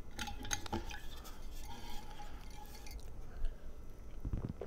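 Small clicks and clinks of the cap being worked open on an insulated water bottle, then gulps of water being drunk from the bottle near the end.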